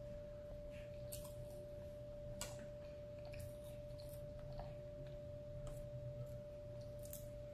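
Close-miked eating sounds: a few short sharp clicks from a plastic fork picking at food on a plate and from chewing. A steady high-pitched tone runs underneath throughout.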